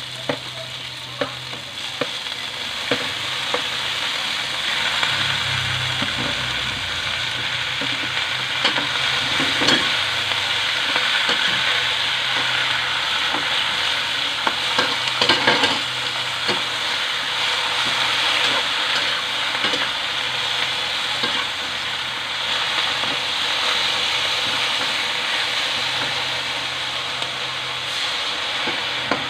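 Vegetables (long beans, eggplant slices and leafy greens) sizzling as they stir-fry in a metal wok, with a metal spatula scraping and knocking against the pan in scattered sharp clicks.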